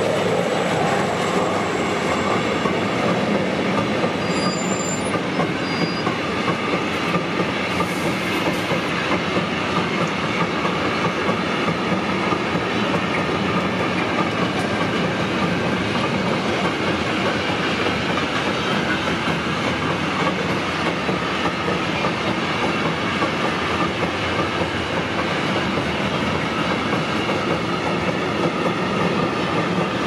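Freight train of hopper wagons rolling past at a level crossing: a steady, loud rumble of wheels on rail with a clickety-clack over the rail joints.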